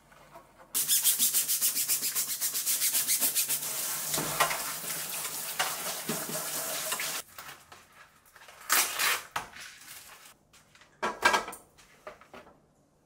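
Stainless steel roasting pan (IKEA KONCIS) being scrubbed by a gloved hand in a steel sink: fast rhythmic rubbing strokes that turn steadier partway through. Then a couple of short clatters as the pan is handled.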